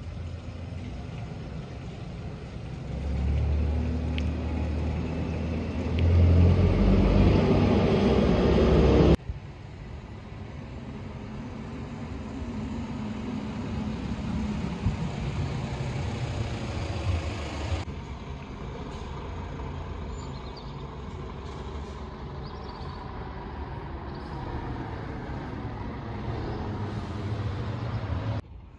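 A motor vehicle's engine running close by, building from about three seconds in and loudest just before it cuts off suddenly about nine seconds in. After that, steady outdoor street noise.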